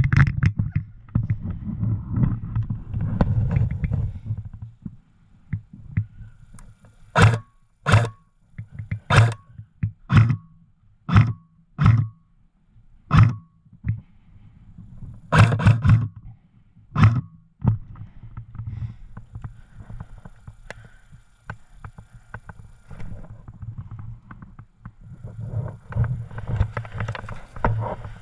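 About ten sharp knocks, roughly a second apart, in the middle of the stretch, between spells of low rumbling noise.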